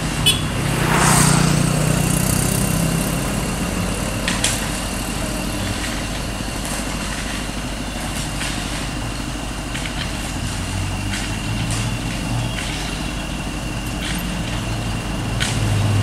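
Dump truck's diesel engine running steadily while its raised tipper bed is lowered after unloading rock and gravel, growing louder near the end. Occasional sharp clicks are heard over it.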